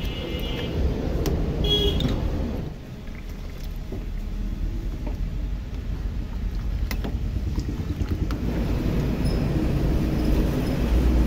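Motor vehicle running with a steady low rumble and road noise, getting louder toward the end. There are a few sharp clicks, and two brief high tones in the first two seconds.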